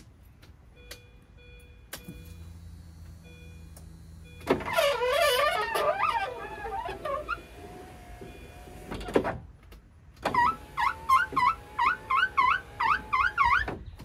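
Power window in the driver's door of a 2005 Mini Cooper S Convertible running the glass down and back up. The motor whines steadily under loud squeaking where the glass rubs on its window track seal. There is a wavering squeal on the first run, a thump about nine seconds in as it stops, then a rhythmic squeak about twice a second as it runs again.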